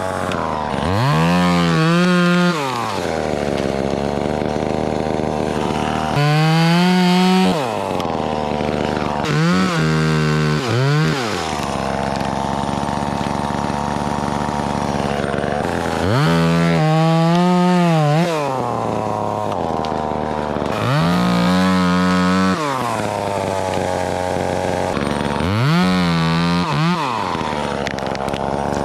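Chainsaw idling, opened up to full throttle about six times for a second or two each, its pitch rising and falling back to idle between bursts: the rhythm of short cuts on tree limbs.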